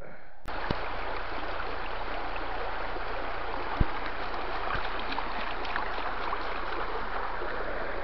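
Shallow woodland stream running over stones, a steady rushing, with a single knock a little under four seconds in.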